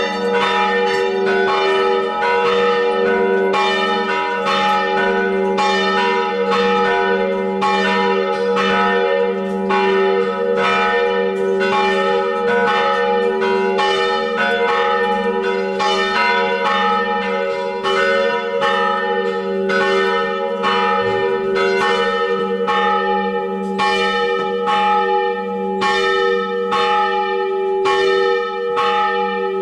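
Church bells ringing, with struck notes about twice a second over the steady hum of the bells' lingering tones.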